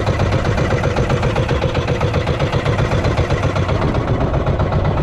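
The engine of a small outrigger fishing boat (bangka) running steadily under way, with a fast, even chugging pulse.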